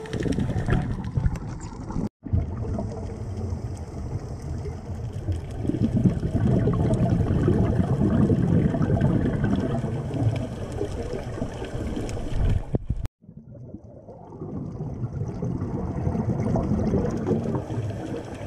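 Muffled underwater sound through a camera housing: scuba divers' exhaled bubbles rumbling and gurgling. The sound cuts out briefly twice, about two seconds in and about thirteen seconds in.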